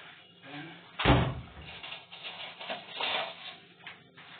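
A single heavy thump about a second in, followed by a couple of seconds of lighter irregular knocking and rustling.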